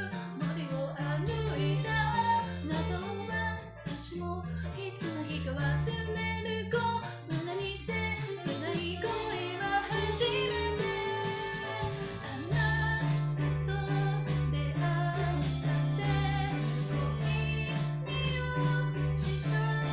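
Pop song with a woman singing over instrumental backing. About twelve seconds in, the bass settles into a held low note over a pulsing beat.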